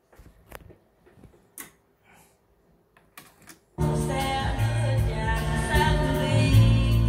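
A few light mechanical clicks from a Nakamichi CR-7A cassette deck as its transport engages. About four seconds in, music with singing starts suddenly at full level: the deck is playing back a tape recorded on a Sony TC-KA7ES.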